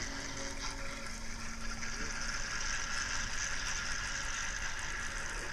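Fishing reel spinning as a hooked salmon pulls line off it, a steady whirring hiss.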